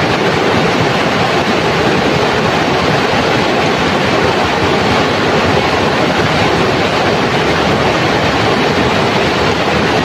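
Shallow, fast river rapids rushing over stones, a loud, steady, even roar of white water.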